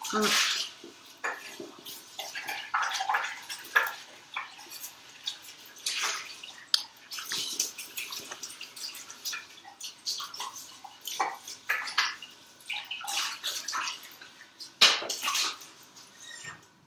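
Intermittent splashing of water with clatter of dishes, as in washing up at a sink.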